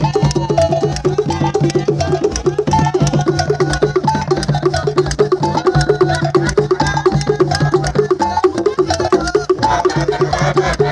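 Choir singing a njembeng song over fast hand percussion with sharp wood-block-like clicks, with a steady low hum underneath.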